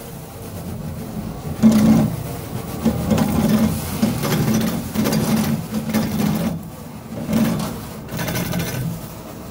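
A machine running and pulling stretch-wrap plastic film off a spinning roll, with the film fluttering and rattling. It grows louder over the first two seconds, then pulses unevenly.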